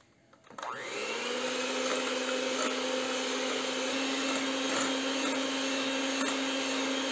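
Electric mixer switching on about half a second in, its motor spinning up quickly to a steady whine as the beaters whip egg whites toward stiff peaks. The motor's pitch steps up a little about four seconds in.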